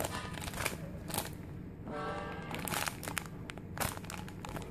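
Plastic packaging of a bread squishy crinkling and crackling as it is handled, in a series of sharp crinkles. A short, steady pitched whine sounds about two seconds in, over a low steady hum.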